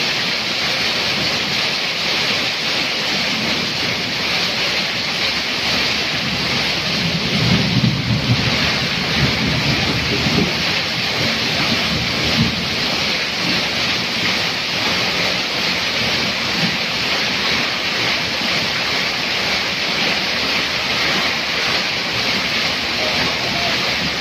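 Heavy rain pouring down, with runoff from a roof edge splashing onto the ground, a steady hiss. A low rumble comes in about seven seconds in and fades over a few seconds.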